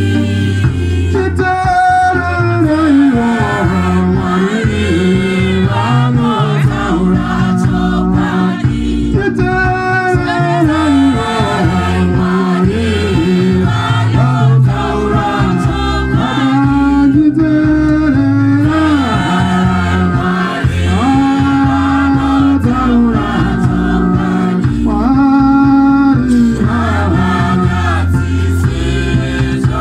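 Gospel choir singing in harmony, with men's lead voices at the microphones over the women's voices of the group.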